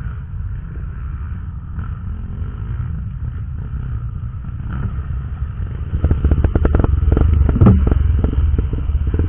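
Trail motorcycle engine running under way with a low rumble. About six seconds in it gets louder, with a run of rapid clattering knocks over rough ground.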